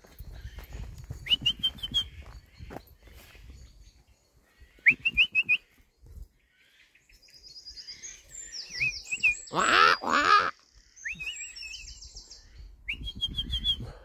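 Woodland birds calling from the trees: short rising whistled chirps every few seconds, and two louder, harsher calls about ten seconds in. Scattered clicks and low rumble run underneath.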